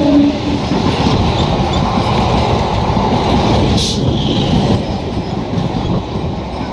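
Train passing close by at speed: a steady, loud rumble of wheels on the rails, with the tail of a train horn dying away in the first half second and a brief high hiss about four seconds in.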